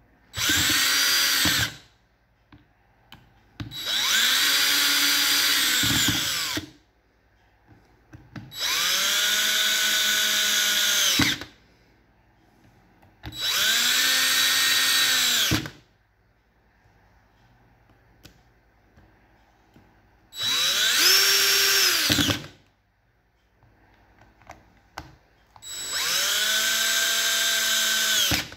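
Power screwdriver driving screws into a plastic tool housing: six short runs, each spinning up with a rising whine, running steady for one to three seconds, then winding down.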